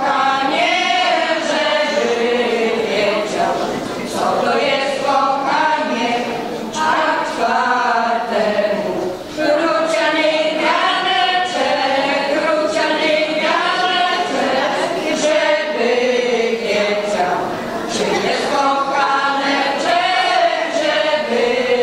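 A women's folk vocal group singing a song together, unaccompanied.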